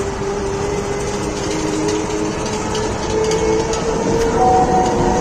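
Combine harvester running, heard close up from its operator platform: a steady mechanical rumble with a whine that slowly rises in pitch.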